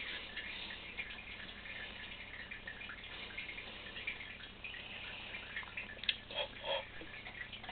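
Faint water trickling and dripping in a turtle aquarium with many small ticks, over a low steady hum; a single sharp click about six seconds in.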